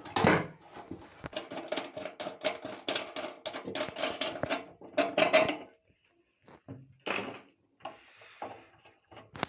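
Metal burner of a domestic gas stove being unscrewed and lifted off: rapid metallic clicking and scraping with a ringing note for about five seconds, then a few scattered knocks.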